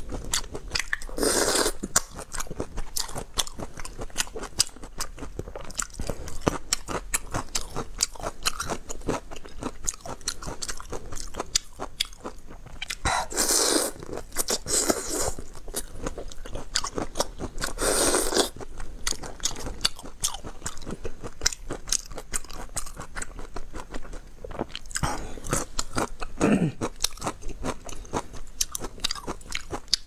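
Close-up eating sounds of whole raw soy-marinated prawns: dense crunching and chewing of the shells and flesh, with a handful of louder, longer sucking sounds as the prawns are sucked at the lips, the first about a second and a half in and others near the middle and towards the end.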